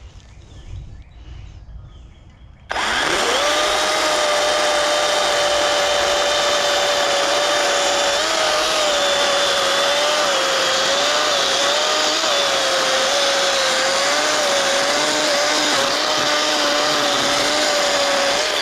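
Kobalt battery-powered electric chainsaw starts suddenly about three seconds in and runs with a steady whine for about fifteen seconds, cutting resinous pine fatwood, its pitch wavering slightly in the second half, then cuts off.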